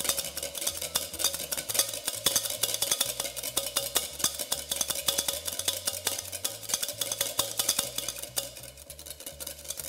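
Wire balloon whisk beating in a mixing bowl: rapid, continuous clicking and scraping strokes of the wires against the bowl, as egg yolk, mustard and oil are whisked into an emulsified mayonnaise.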